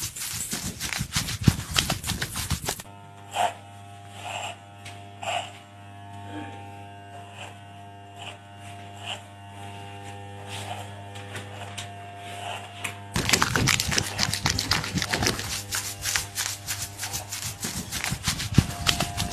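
Wet lather squelching and crackling as it is rubbed by hand over a face and scalp, for the first three seconds and again from about thirteen seconds on. In between, a steady electric buzz with scattered light snaps while facial hair is threaded.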